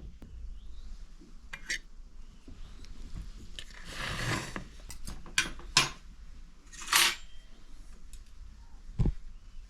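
Dishes and cutlery clattering: sharp clinks, two longer scraping sounds, and a dull thump near the end.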